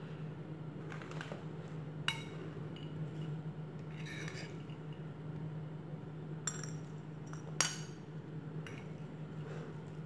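A spoon clinking and scraping against a ceramic plate as a fruit salad is tossed and mixed: a handful of separate clinks, the loudest about three-quarters of the way in, over a faint low steady hum.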